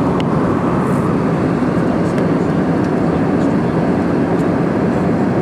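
Airliner cabin noise in flight: a steady, even rush of jet engine and airflow noise heard from inside the passenger cabin.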